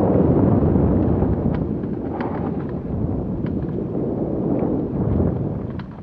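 Wind buffeting the microphone of a camera on a mountain bike, mixed with tyres rumbling over a dirt trail, while the bike descends. Scattered sharp clicks and rattles come through, and the rumble eases somewhat near the end.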